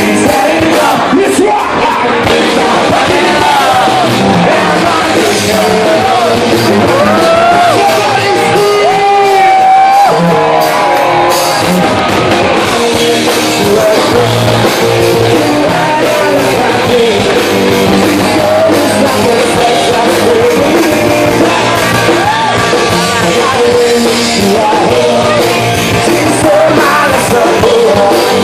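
Live rock band playing loud: a male singer at the microphone over guitars and drums.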